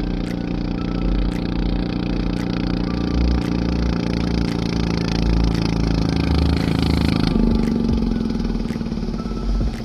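Klotok boat's inboard diesel engine running steadily. About seven seconds in, its note changes and the higher hiss drops away.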